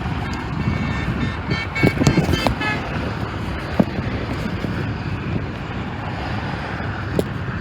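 Steady road traffic noise, with a quick string of short, high-pitched toots about one to three seconds in.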